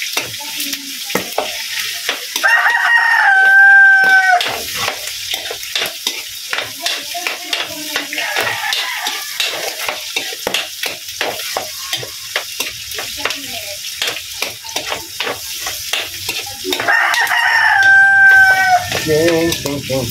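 Pork, garlic, onion and tomato sizzling in a steel wok while a metal spatula stirs and scrapes in quick, irregular strokes. A rooster crows twice, louder than the cooking: once about two and a half seconds in and again near the end.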